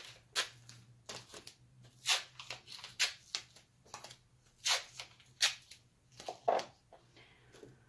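Masking tape pulled off the roll and torn into short pieces: a series of quick, sharp rips spaced about a second apart.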